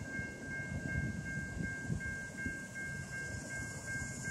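A CSX intermodal freight train led by a GE C40-8W diesel locomotive approaching from a distance: a low, uneven rumble, with a steady high two-note tone held throughout.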